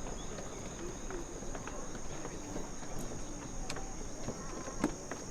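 Crickets chirring in a steady high-pitched drone, with a faint murmur of people's voices in the background and a few sharp clicks.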